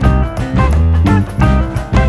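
Background music: an upbeat guitar-led tune with a steady beat and bass.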